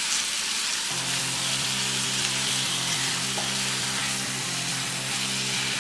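Chopped spinach sizzling in hot oil in a nonstick pan as it is stirred with a wooden spatula. Background music with steady held notes comes in about a second in.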